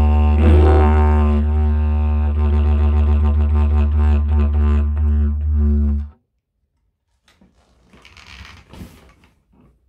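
Homemade didgeridoo, hollowed out of a split piece of dry wood and glued back together, played with a steady low drone. A brighter burst rises over the drone about half a second in, then the drone pulses rhythmically at roughly four beats a second. It cuts off abruptly about six seconds in.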